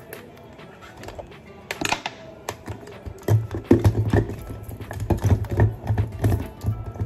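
Irregular plastic clicks and knocks as a hand blender's motor unit is handled and fitted onto its chopper bowl, over background music whose low pulsing beat comes in about three seconds in.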